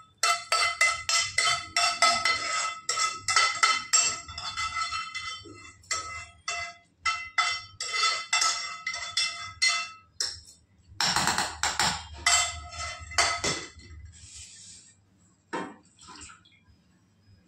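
Metal kitchenware clinking over and over, a steel utensil striking a steel vessel with a brief metallic ring on each hit. The hits come several a second at first, then thin out, with a louder flurry about eleven seconds in.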